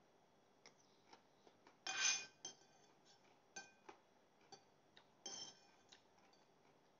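Spoon and fork clicking and scraping against a plate while eating: scattered light clinks, with two louder scrapes about two seconds in and again just past five seconds.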